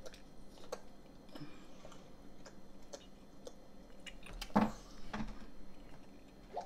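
Close-miked chewing of hot chicken bites: small wet clicks and smacks from the mouth, with one louder sound about four and a half seconds in.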